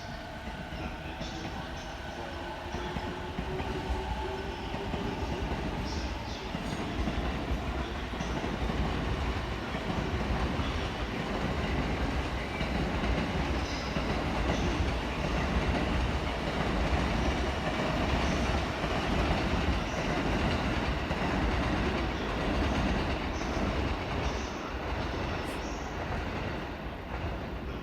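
Electric commuter train running through a station, with a rising motor whine in the first few seconds. Then louder rumble and clatter of wheels on the rails build up and ease a little near the end.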